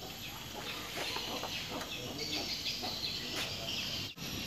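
Background chirping of birds in the open-air workshop ambience, with a short drop-out near the end.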